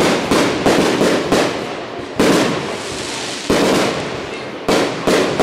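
Aerial fireworks going off: about seven or eight sharp bangs, several close together in the first second and a half, then one every second or so, each followed by a fading echo.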